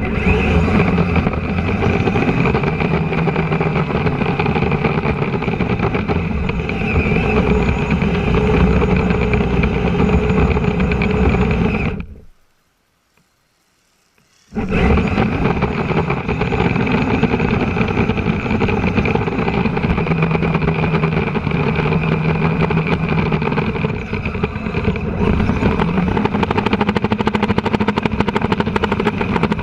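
Kyosho Blizzard RC snowcat's electric drivetrain and tracks running, heard loud and close from a camera mounted on the vehicle, with a steady whine over the rattle. A little before the middle it cuts to near silence for about two seconds, then comes back just as loud.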